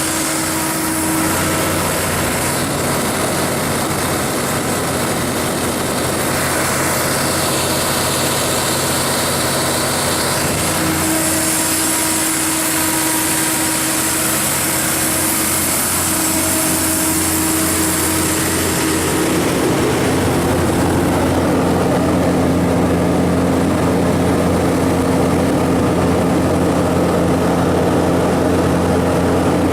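Cummins QSB7-G5 six-cylinder diesel engine of a DSGAE 200 kW generator set running at a steady speed. About twenty seconds in, the sound becomes slightly louder and fuller.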